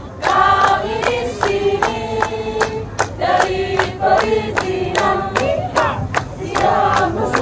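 A group of women singing together in unison while clapping their hands in a steady, even rhythm.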